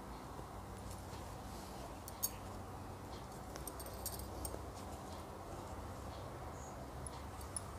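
Faint clicks and light rustling of a crochet hook working wool yarn, a few small ticks over a steady low background hum.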